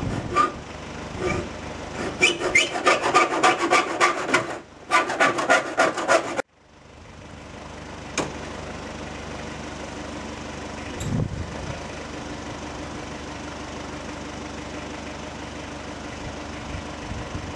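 Rapid sawing strokes, about four or five a second, with a short pause partway. About six seconds in they cut off abruptly, leaving a steady low hum with an occasional click.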